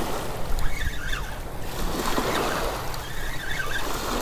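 Small waves washing and lapping onto a pebble beach, with wind buffeting the microphone.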